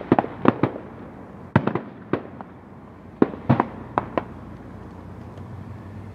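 Firework rockets bursting in the sky: about a dozen sharp bangs in the first four seconds, several coming in quick pairs, over a steady low rumble. The bangs then stop and only the rumble remains.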